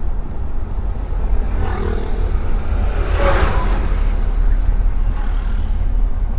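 Oil tanker truck's engine and road noise heard inside the cab: a steady low rumble, with a louder rushing swell about three seconds in as traffic goes by.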